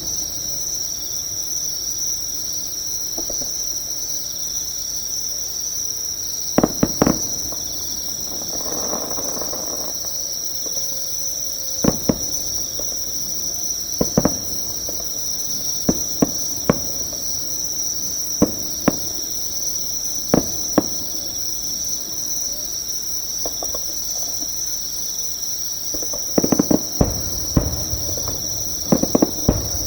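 Insects chirring close by in one steady, high-pitched trill that never lets up. Over it come distant fireworks bursts: sharp cracks and booms at irregular intervals, with a rapid cluster near the end.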